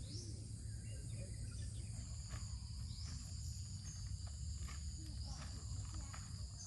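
Insects trilling steadily at a high pitch, with short rising chirps every second or so, over a low steady hum and a few faint clicks.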